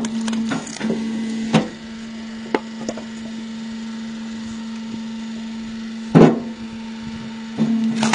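Homemade log splitter working through firewood: a steady machine hum that swells under load, with sharp cracks and knocks of wood splitting, the loudest about six seconds in.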